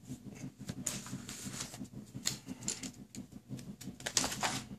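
Light clicks and rustling of a plastic model-truck bumper, with its light wiring, being handled and laid down on a cutting mat. A brief louder rustle comes near the end.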